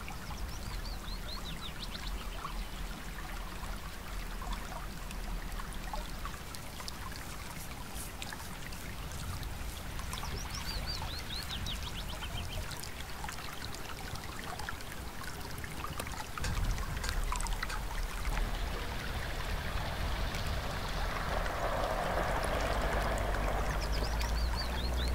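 Mountain stream running and trickling over stones, a steady watery hiss, with a few faint high chirps. From about sixteen seconds in, a low rumble joins and the water sound grows louder.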